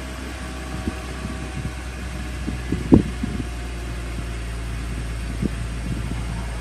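BMW Z4 3.0's straight-six engine running with a steady low hum, its misfire treated with new coil packs and a new DISA valve. A few short knocks and clunks break in, the loudest about three seconds in.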